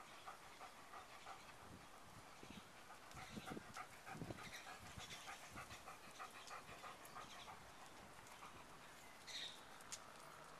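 A Weimaraner panting in quick, even breaths, tired from a walk. A few low thumps come through about three to four seconds in.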